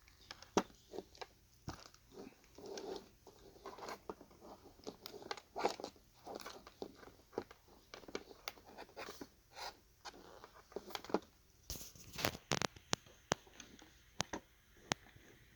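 Audio-Technica ATH-M50x headphones being handled: irregular sharp clicks and short crackly scrapes of the plastic parts being moved and flexed, with a dense cluster of louder clicks about twelve seconds in.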